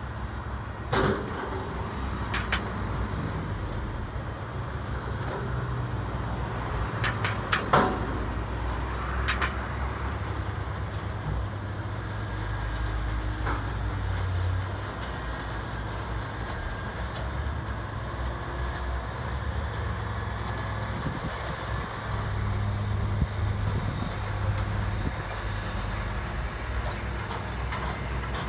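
Diesel engines of a log truck and a log-handling machine running with a steady low rumble, with a few sharp knocks, the loudest about a second and about eight seconds in.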